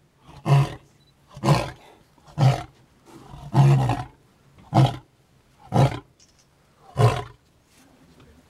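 Male lion roaring in a series of seven short, deep grunting calls about a second apart, the fourth a little longer. This is the grunting run that makes up a lion's roaring bout.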